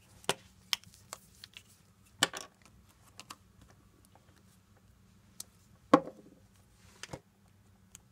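Scattered sharp clicks and taps from a glue stick and small paper cut-outs being handled and pressed onto a sheet of paper, about half a dozen in all, the loudest about six seconds in.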